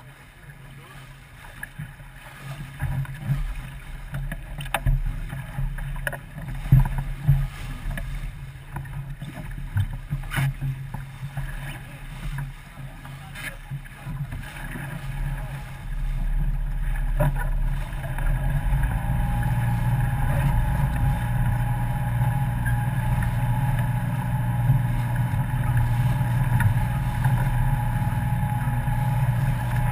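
A boat under way on the water: a low hum with water and wind noise and a few sharp knocks. About halfway through it gets louder and steadier.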